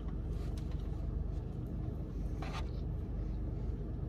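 Steady low hum inside a parked car, with faint eating noises as two people chew donuts and one short sound about two and a half seconds in.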